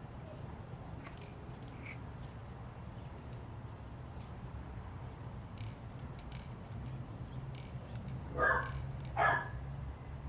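A dog barks twice near the end, about a second apart, over a steady low hum, with a few faint clicks earlier on.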